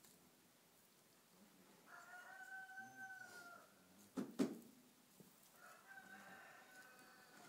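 A rooster crowing twice, each crow one long drawn-out call of well over a second. A single sharp knock falls between the two crows and is the loudest sound.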